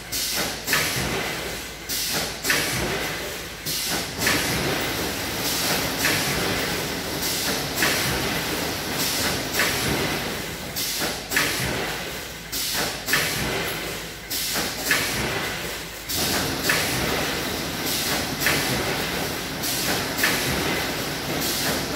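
Automatic snack pouch packing machine, with a multihead weigher, running steadily. A short burst of hiss and clatter comes roughly once a second, one for each packing cycle.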